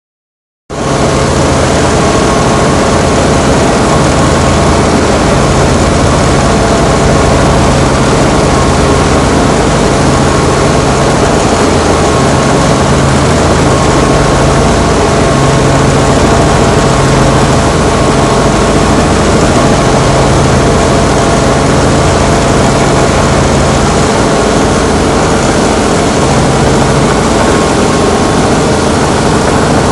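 Robinson R44 helicopter's six-cylinder Lycoming piston engine and rotors running steadily, a loud even drone with a constant hum and hiss, starting abruptly just under a second in.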